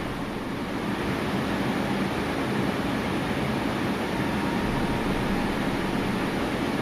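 Steady rushing background noise that stays even throughout, with no distinct clicks or crimping strikes standing out.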